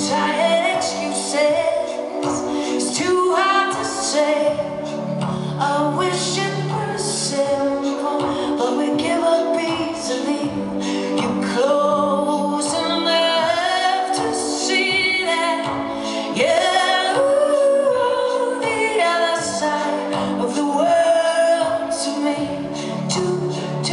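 A woman singing live, her sustained notes held with vibrato, over guitar and a steady beat.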